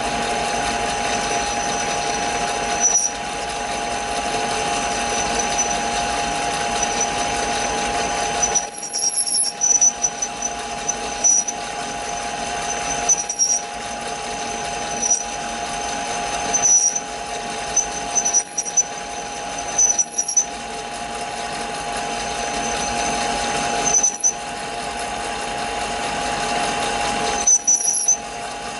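Metal lathe running with an MT1 taper reamer cutting into a spinning cast-iron part: a steady machine whine with a high squeal, broken every second or two by short dips and clicks.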